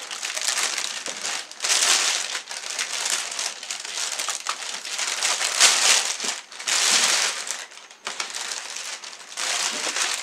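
Plastic packaging crinkling and rustling in uneven bursts as it is handled and pulled off.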